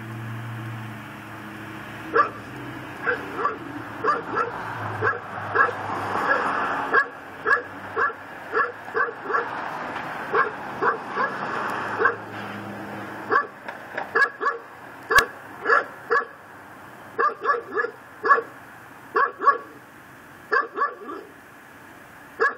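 Pit bull barking over and over in runs of short barks, about two a second, with brief pauses. A car drives past in the middle.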